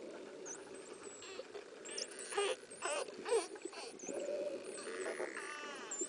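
Dolphins calling underwater: many brief high whistles sweeping up and down, with click trains and a buzzing pulsed call near the end. Under them runs a steady low rush of water on the camera's microphone.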